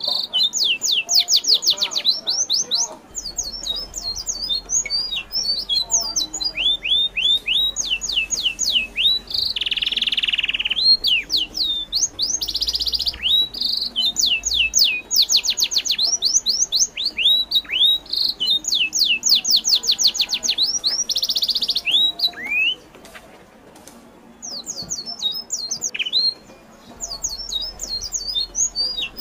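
Birds calling in rapid runs of high, sharp chirps that sweep downward, several a second, broken now and then by a short harsh call. The calling pauses briefly about two-thirds of the way through.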